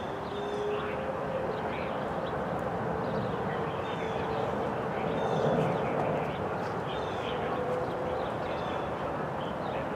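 Several distant outdoor warning sirens sounding together during a tornado drill, heard as faint, slightly wavering held tones under a steady outdoor hiss, with birds chirping throughout.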